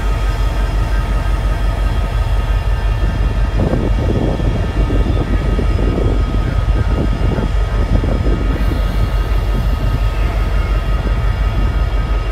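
Safetran Type 1 grade-crossing bell ringing steadily, over the low rumble of diesel locomotives and covered hopper cars rolling slowly through the crossing.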